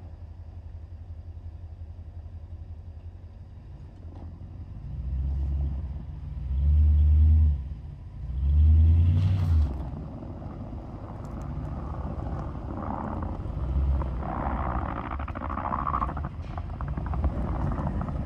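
Toyota Tundra pickup's engine running steadily, then revving up in three loud surges a few seconds in, as it works plowing deep snow.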